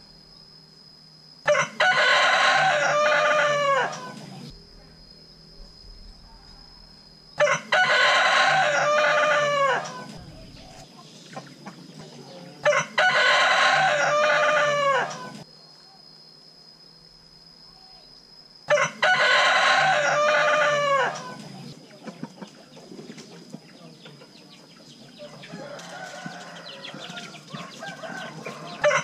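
Rooster crowing four times, one long crow every five to six seconds, with a fainter crow near the end.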